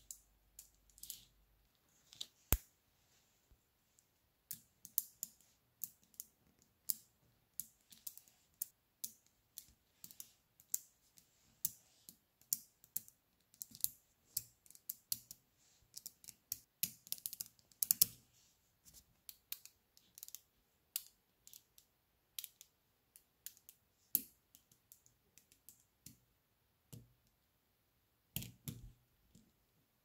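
Small coated magnetic balls clicking as a strand of them is snapped onto a cylinder of balls: many quick, irregular clicks, with one sharp snap about two and a half seconds in and a dense run of clicks a little past the middle.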